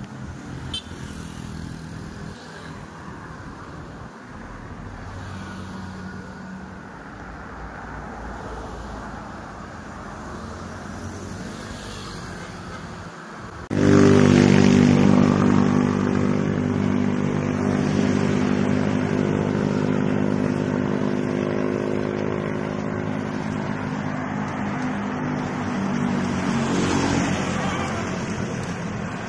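Road and traffic noise heard from a moving bicycle. About halfway through, the sound jumps louder to the steady running of a nearby motor vehicle's engine, which eases off slightly toward the end.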